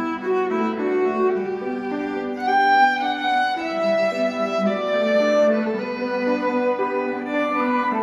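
A small student ensemble of violins and cello, with a flute, playing a melody in long held notes.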